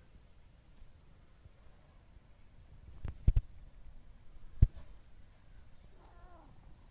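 Quiet garden background with a few faint, high bird chirps. A sharp double knock comes about three seconds in and a single sharp knock about a second and a half later. Near the end there is a faint, brief pitched call.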